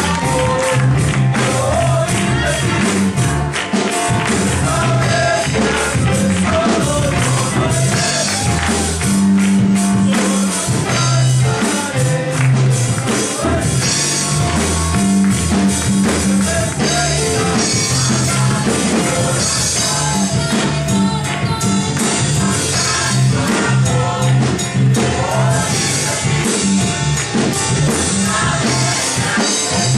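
Choir singing an upbeat song over live instrumental backing with a steady percussive beat.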